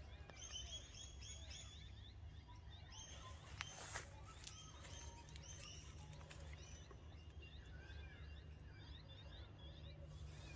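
Faint outdoor ambience of small birds chirping again and again in the background over a low steady rumble, with two faint knocks about four seconds in.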